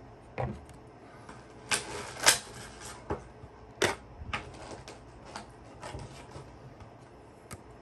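Plastic packaging and trading cards being handled and unpacked: a string of separate sharp crinkles and clicks, the loudest a little over two seconds in.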